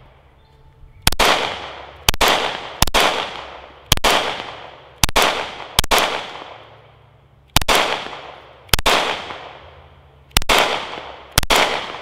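Sig Sauer P365XL 9mm pistol fired ten times at an uneven pace, each shot followed by a short echo that fades over about a second. It is shot with a deliberately weak one-handed grip and keeps cycling with no malfunction.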